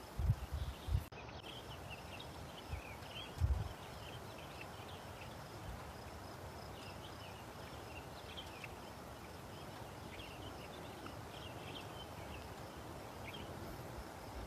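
Faint outdoor ambience: many short, high chirps scattered throughout over a steady low hiss, with a few low thumps in the first four seconds.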